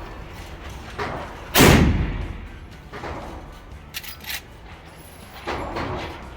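Gunshots at a shooting range: one loud shot about one and a half seconds in with a trailing echo, and fainter shots about a second in and again near the end. Two small clicks come about four seconds in.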